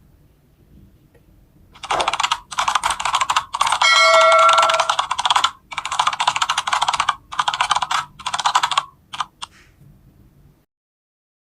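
Computer-keyboard typing sound effect played in a video intro: about six bursts of rapid key clicks with short gaps between them, ending in two single clicks. A short ringing tone sounds in the middle of the typing.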